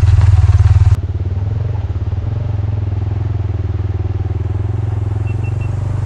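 Motorcycle engine running steadily while riding, with a fast even pulse; its level drops suddenly about a second in and then holds steady.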